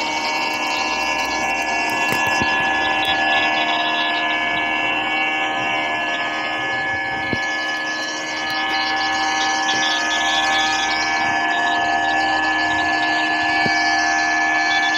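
A steady whine made of several held tones over a hiss, with no break or change in pitch, like a motor or jet engine running.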